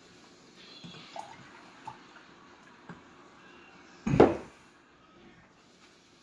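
Orange juice poured and sipped from a glass, with faint small clicks and liquid sounds, then one loud, short sound about four seconds in.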